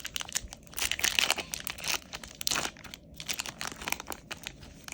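Crinkling of foil or plastic packaging as Yu-Gi-Oh trading cards are handled: irregular crackling, busiest in the first half and trailing off near the end.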